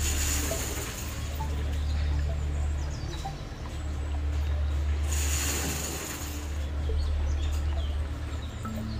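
Soft background music with a steady low bass whose notes change every second or two; a brief hissing swell at the very start and again about five seconds in.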